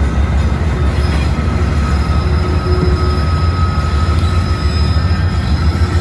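Norfolk Southern GE Dash 9 diesel locomotives pulling a coal train, their engines running with a deep steady drone, and a steady high-pitched squeal of wheel flanges on the curving track.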